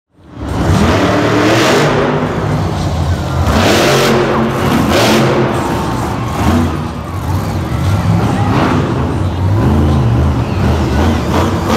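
Monster truck engines, supercharged V8s, revving hard. The pitch climbs and drops several times as the trucks accelerate and lift off the throttle.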